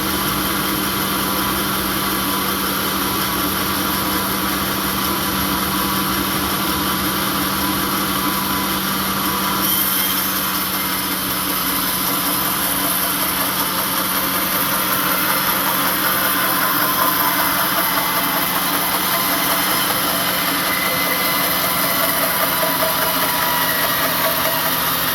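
Sawmill machinery running with a steady motor hum and a noise that fills the whole range; the sound shifts slightly about ten seconds in.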